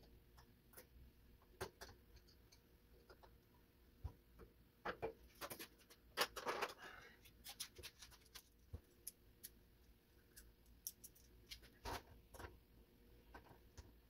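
Faint, scattered clicks and taps of small parts being handled, with a short stretch of rustling and scraping about five to seven seconds in.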